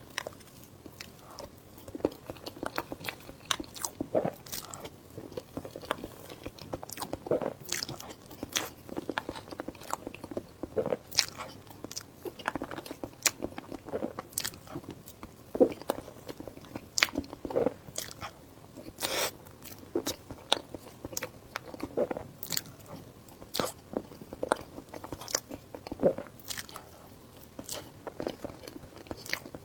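Close-miked mukbang eating: a person biting and chewing crunchy food, with irregular sharp crunches several times a second and no talking.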